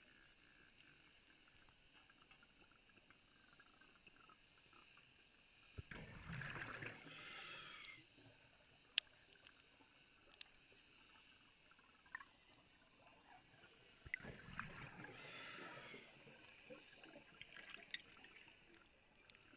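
Underwater sound: a diver's exhaled air bubbling out twice, each burst lasting about two seconds, over a faint crackle with scattered sharp clicks.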